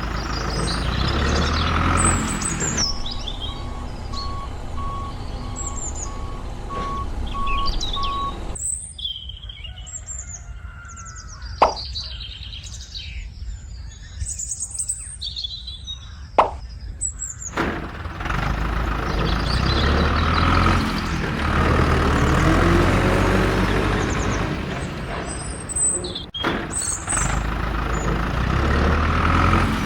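Background music, broken in the middle by a stretch of birds chirping with two sharp clicks, after which the music returns.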